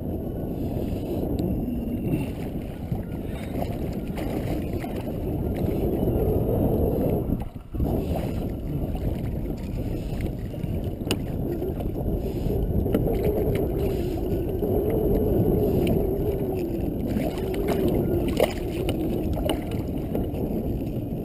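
Steady low wind and water noise around a small kayak, with a brief break about seven and a half seconds in and a few light clicks later on.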